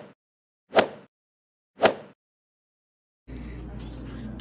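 Three sharp hits about a second apart, each ringing out briefly, with dead silence between them. About three seconds in, a steady low room hum takes over.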